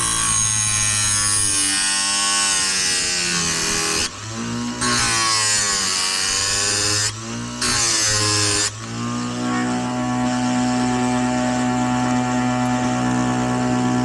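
Oregon electric chainsaw-chain sharpener running, its grinding wheel hissing against the chain's cutter teeth as each tooth is ground. The grinding cuts out briefly twice, about four and seven seconds in, as the wheel lifts off between teeth, and the motor's hum dips and recovers around those breaks.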